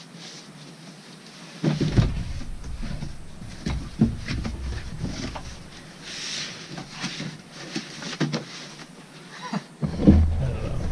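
A cardboard box being handled: a knock as it is set down on a table about two seconds in, then scraping and rustling as its cardboard flaps are pulled open. Near the end come heavy low bumps of close handling.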